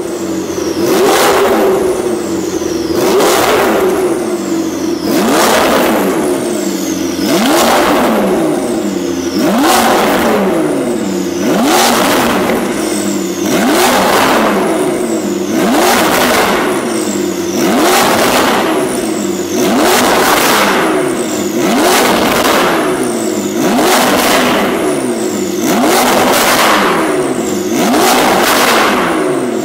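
McLaren 650S twin-turbo V8 blipped repeatedly at a standstill through a valvetronic, catless Fi Exhaust with catless downpipes. About fourteen short revs come roughly every two seconds, each climbing and dropping back in pitch.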